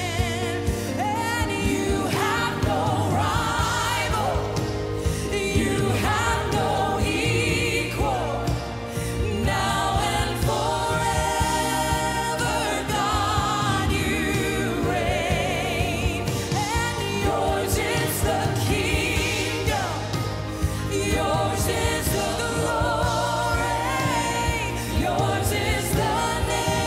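Live gospel worship music: a woman sings lead with vibrato, backed by other singers and a band with a steady bass line.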